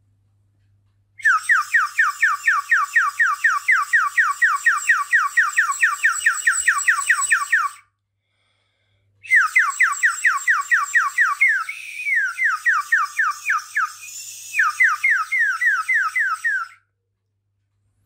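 Water-filled 3D-printed clear PLA bird whistle blown in two long breaths, each a fast warble of repeated falling chirps, about six a second. The warble comes from the blown air bubbling through the water in the whistle.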